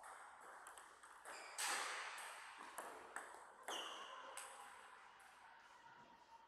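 Table tennis rally: the plastic ball clicking sharply off the rubber-faced bats and the table in a quick, uneven run of hits, with a short echo after each. The loudest hit comes about a second and a half in, and the hits stop near the end as the point finishes.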